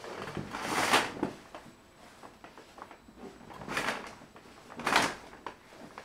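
Curtains being drawn shut along a curtain track: three sliding swishes of fabric and runners. The first and longest comes in the first second, and two shorter ones come near the end.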